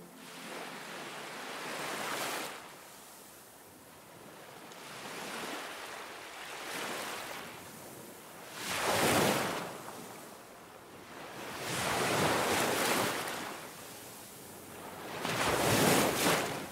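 Ocean surf: waves breaking and washing up the shore, the rush swelling and falling away every three to four seconds, with three bigger surges in the second half.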